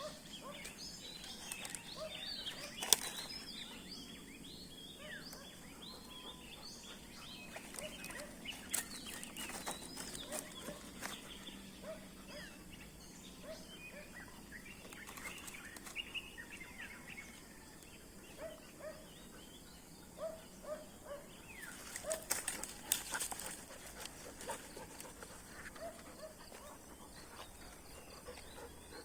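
Outdoor ambience with many small birds chirping, broken by scattered sharp knocks and rustles: one loud knock about three seconds in and a cluster of them a little past the middle.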